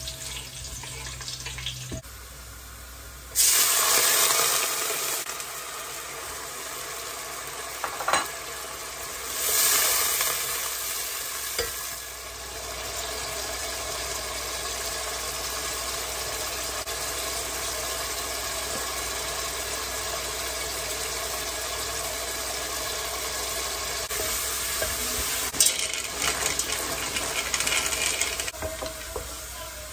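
Vegetables frying and sizzling in oil in a large aluminium pot while a wooden spatula stirs them. The sizzling swells louder twice in the first dozen seconds, then settles to a steady hiss with a few knocks of the spatula against the pot.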